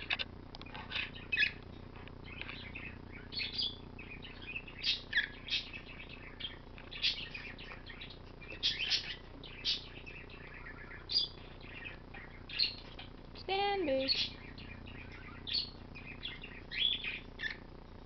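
Pet birds in a mixed flock of parrots and parakeets chirping: many short, high chirps come at irregular intervals. One longer call with an arching pitch comes about two-thirds of the way through.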